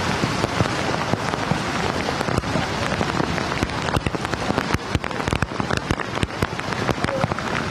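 Heavy rain pouring down, a dense steady hiss with many sharp taps of drops striking hard surfaces close by.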